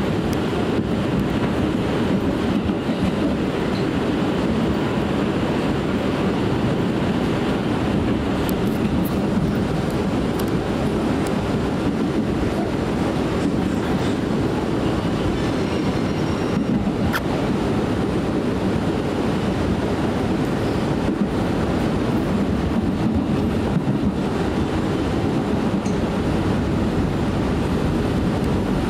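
Interior running noise of an R179 New York City Subway car moving between stations: a steady rumble of wheels on rail, with a few faint clicks.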